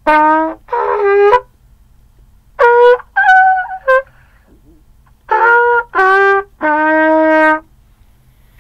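Muted trumpet playing short groups of two or three notes, stopping and starting again; the last group steps down to a longer low note. This is a faltering attempt at a scale on the trumpet.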